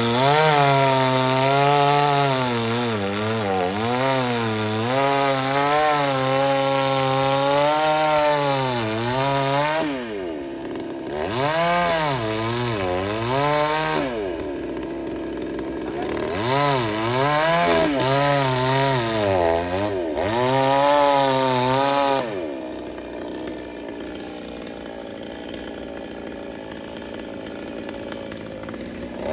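Two-stroke chainsaw cutting wood, its engine pitch wavering up and down as it bogs and recovers under load in the cut. It eases off twice, around 10 and 14 seconds in, and drops to a quieter low run from about 22 seconds before revving up again at the very end.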